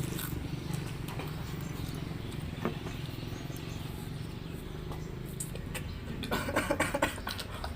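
Mouth sounds of someone eating fried noodles: scattered chewing and slurping clicks that grow busier near the end, over a steady low hum.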